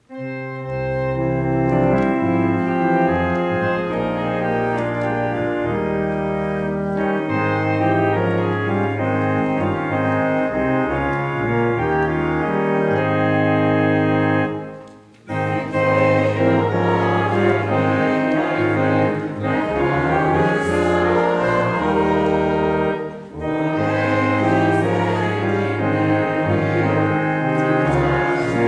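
Church organ playing a carol in full sustained chords over a stepping bass line, with a brief pause about fourteen seconds in.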